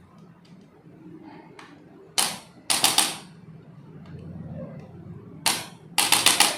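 Sharp cracks or slaps during a chiropractic treatment, in two groups: a single crack, then about half a second later a quick run of three or four, the second group about three seconds after the first.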